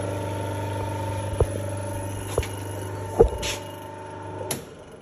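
Brooks Crompton 2.2 kW three-phase electric motor running unloaded on a test run, a steady electrical hum, with a few sharp clicks. The hum cuts out near the end as the power goes off and the motor starts to run down.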